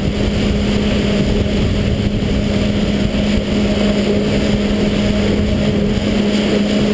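WaveRunner personal watercraft engine running at a steady speed, one even drone that holds its pitch, with water and wind rushing past.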